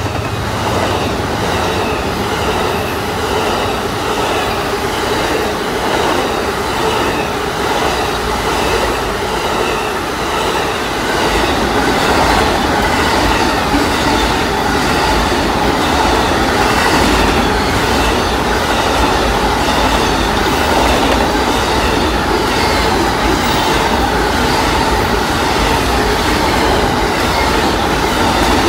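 Amtrak Auto Train's bilevel passenger cars and then its enclosed autorack car carriers rolling past, their steel wheels clicking over the rail joints in a steady rhythm. A thin steady whine from the wheels joins in about halfway through.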